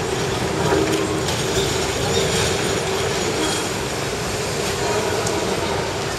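Hong Kong electric tram running on its street rails: a steady rumble of wheels on track with a low hum throughout and a few faint clicks.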